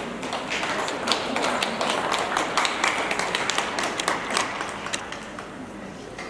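Scattered applause from a small rink audience, a few hands clapping irregularly, thinning out after about five seconds.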